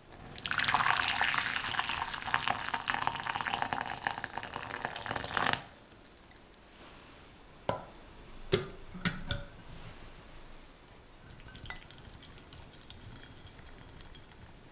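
Hot water pouring into a glass bowl for about five seconds. Then a few sharp glass-on-glass clinks as a second glass bowl is set into it, followed by faint spatula stirring.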